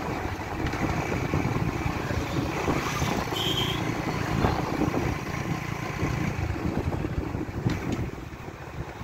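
Yamaha RX 100's two-stroke single-cylinder engine running steadily at road speed, mixed with wind rush on the microphone. A short high beep sounds about three and a half seconds in.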